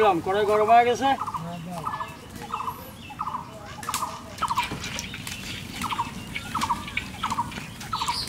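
Domestic fowl calling in a regular series of short calls, about two a second, starting after a second of speech.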